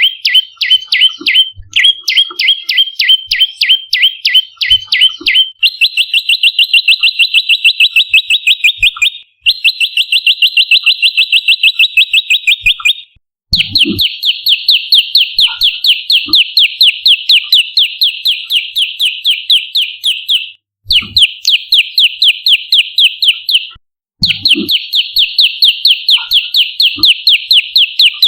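Prenjak lumut calling: loud, rapid runs of sharp repeated chip notes, many a second, in several long bursts broken by brief pauses.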